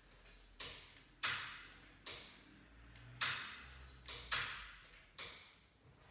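Wylex 30 mA RCD (WRS80/2) in a consumer unit tripping under the test current of an automatic RCD test, and being switched back on by hand between trips. About seven sharp clacks over six seconds, two of them louder than the rest.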